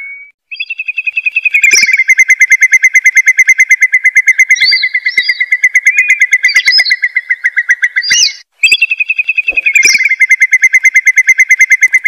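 Recorded lure call of a curlew (gajahan): a loud, fast rippling trill with short higher whistled notes over it. It breaks off briefly about eight seconds in and starts again.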